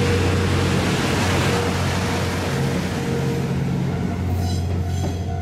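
An 87-series diesel railcar train running past and away. The rumble of its engines and wheels fades about three and a half seconds in, leaving a steady low hum.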